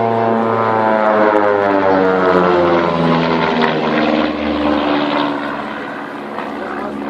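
Propeller aircraft flying past, its engine note dropping steadily in pitch as it goes by, then fading a little near the end.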